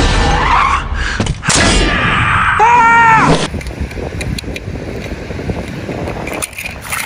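Animated-film car-crash sound effects: loud crash and clatter impacts, with a short pitched cry whose pitch bends at about three seconds in. The film sound cuts off abruptly and gives way to a quieter steady rush of wind on the microphone and surf.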